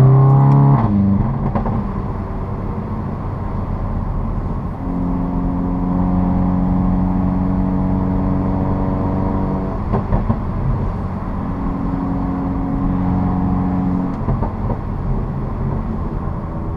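A 2015 VW Mk7 GTI's turbocharged 2.0-litre four-cylinder, heard through a Borla S-Type cat-back exhaust with an APR downpipe. Its rising note drops off about a second in as the throttle is lifted, with a couple of short sharp pops. It then settles into a steady cruising drone with road noise, broken by a few more brief pops around ten and fourteen seconds in.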